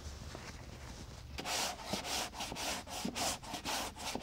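A long sanding block with 220-grit paper is stroked quickly back and forth over primer surfacer on a truck door panel, about three to four strokes a second, starting about a second and a half in. This is block sanding the primer to level it, taking the dry guide coat off the high spots.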